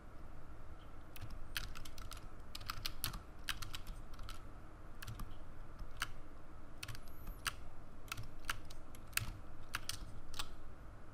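Irregular clicking of a computer keyboard and mouse during work at a computer, a few clicks a second, some in quick pairs, over a steady low hum.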